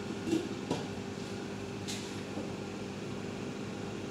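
Glass lid settling onto a stainless steel cooking pot with a few light clicks in the first two seconds, over a steady mechanical hum.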